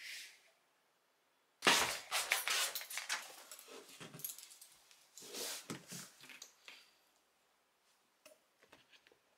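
Rustling and metal clinking of a dog harness and leash snap clip being handled, starting about a second and a half in and dying away after about five seconds, with a few light clicks near the end.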